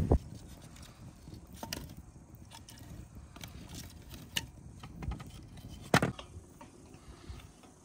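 Wood fire burning in a mud-brick stove, with scattered sharp crackles and wooden clicks as split logs are laid onto it, and one louder knock about six seconds in.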